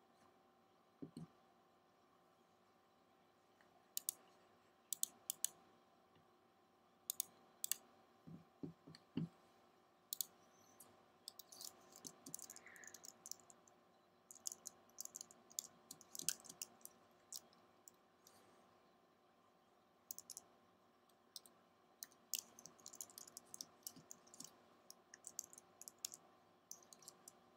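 Computer mouse clicks and small desk taps, single and paired at first, then in quick scattered runs, over a faint steady electrical hum.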